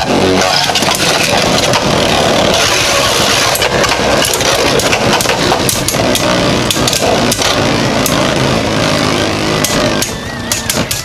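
Two Beyblade Burst spinning tops with 3D-printed metal upgrades whirring and grinding on the plastic stadium floor, with repeated sharp clicks as they strike each other. The sound drops in level about ten seconds in as the tops lose speed.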